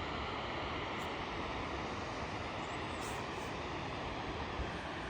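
Steady rushing roar of a nearby waterfall, continuous and without break.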